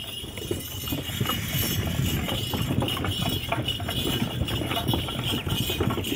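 Camel-drawn wooden cart rolling along a dirt track, its boards, shafts and harness chain rattling and knocking in a dense, irregular clatter, with the camel's footfalls.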